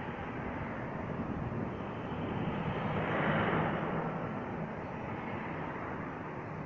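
Road traffic: cars passing on a road bridge, with tyre and engine noise swelling as one vehicle goes by close, loudest about three seconds in, then fading back to a steady traffic hum.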